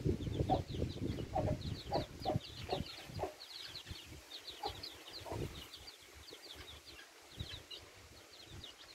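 Farmyard fowl calling: a constant stream of quick, high chirps and peeps in short clusters, with low clucking calls in the first three seconds.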